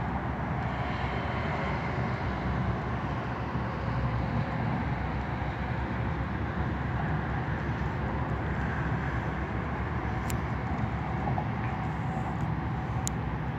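Steady rumbling outdoor background noise that holds an even level throughout, with a few faint short clicks near the end.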